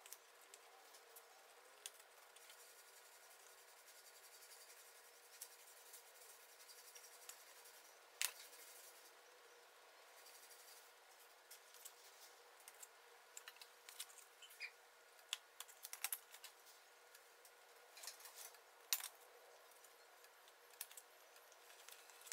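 Faint, scattered light clicks and taps of small sawn-veneer marquetry pieces being handled and set into place on a paper assembly board, the two loudest about 8 and 19 seconds in.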